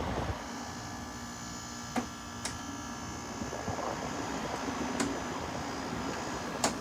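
Arctic King 5000 BTU window air conditioner running just after start-up, a steady hum with a few light clicks. It is not yet blowing cold.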